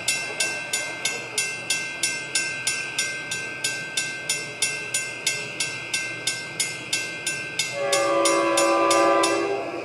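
A railroad grade-crossing warning bell rings steadily, about three strikes a second, as the crossing gates come down. Near the end a train's multi-tone air horn sounds one loud blast of about a second and a half, and the bell stops as it ends.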